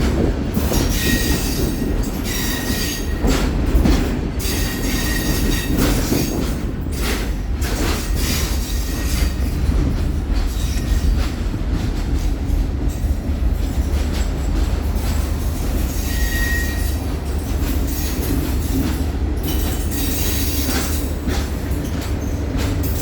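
Diesel passenger train running on the rails, heard from an open-air car close behind the locomotive: a steady low rumble of engine and wheels, with clacks from the rail joints and several brief high wheel squeals.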